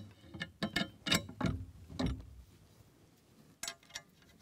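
Irregular light metal clicks and knocks as the Woodchuck Timber Jack's steel hook and bolt are fitted onto its aluminium handle during assembly. The clicks are thickest in the first two seconds, pause, and come back briefly near the end.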